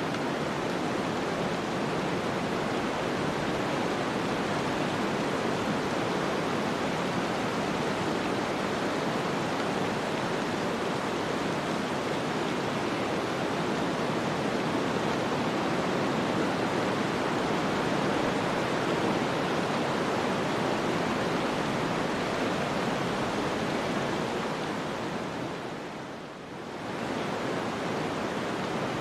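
Steady rushing wind of a snowstorm, an even hiss without distinct gusts, dipping briefly near the end.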